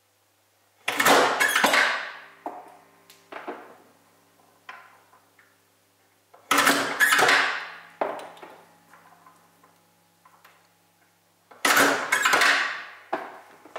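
Omega Uno grapevine grafting machine cutting cuttings: three rounds of loud, sharp metallic clacks about five seconds apart, each with a short ringing tail. Softer clicks of the wooden cuttings being handled in between.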